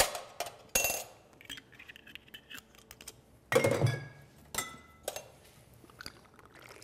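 Glass bottles and steel shaker tins set down and knocked against a marble bar counter: several separate sharp clinks and knocks, some leaving a short ring, the loudest about three and a half seconds in.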